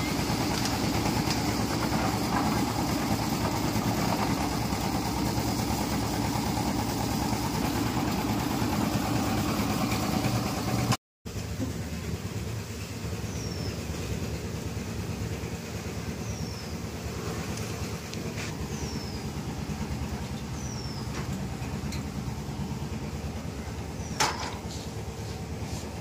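Engine-driven drum concrete mixer running steadily while its tilted drum discharges wet concrete. After a cut about eleven seconds in comes a quieter steady background hum, with several short falling bird chirps and a single sharp knock near the end.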